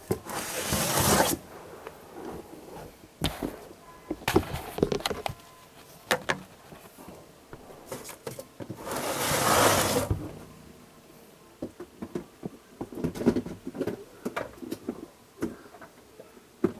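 16-quart plastic tubs being slid out of a shelving rack and handled: a long scraping slide at the start and another around nine seconds in, with scattered plastic clicks and knocks between.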